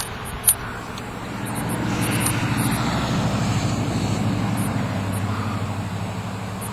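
A swarm of honey bees buzzing around a swarm trap: a steady low drone that swells a couple of seconds in and eases off again. Two sharp clicks near the start.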